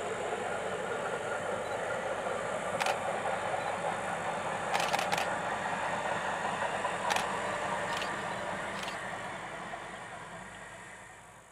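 A train of passenger coaches running past at a distance: a steady rumble with a few sharp clicks, fading away near the end.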